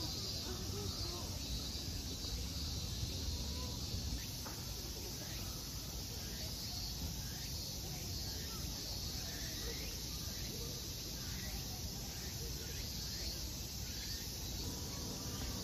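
Outdoor park ambience: a steady high insect drone with short, repeated bird chirps through the middle, over a low steady rumble.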